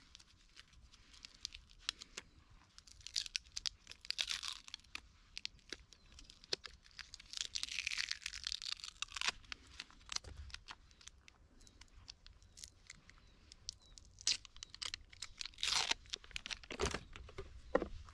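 Irregular rustling and crinkling with many scattered sharp clicks, from clothing brushing against the microphone of a camera held close to the body. Busier stretches come about three to five seconds in, in a longer rustle about seven to nine seconds in, and again near the end.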